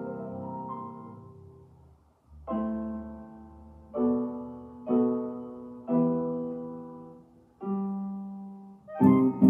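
Piano playing slow, separate chords, each struck and left to ring and fade. After a held chord dies away, about five chords follow roughly a second apart. Just before the end, quicker, busier playing begins.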